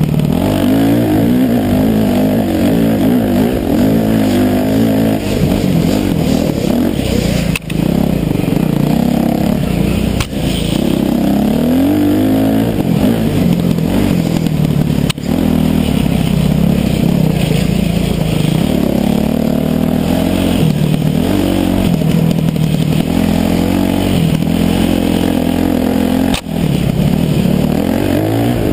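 Dirt bike engine revving up and down again and again under hard riding, its pitch climbing and falling with the throttle. The sound dips briefly four times.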